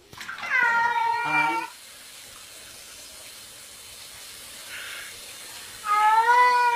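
A domestic cat meowing twice, two long drawn-out meows about five seconds apart. A steady hiss of running water fills the gap between them.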